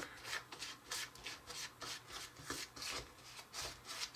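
Fingers rubbing and working a dry, crumbly sugar cookie mix in a small plastic bowl: a soft gritty scratching in short strokes, about three a second. The mix is still too dry to come together as dough.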